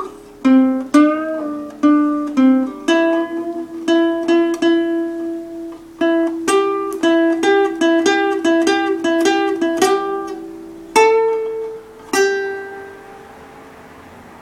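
A plucked string instrument picking out single notes. It ends the song on two last chords that ring out and fade about two thirds of the way through.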